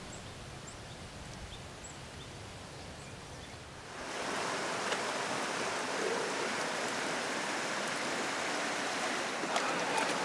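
Quiet outdoor air with a few faint high chirps, then, about four seconds in, a stream running over rocks sets in as a steady rush of water. A few light splashes come near the end.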